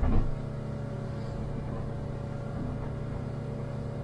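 A boat's engine running steadily at cruising speed, an even drone with a brief thump right at the start.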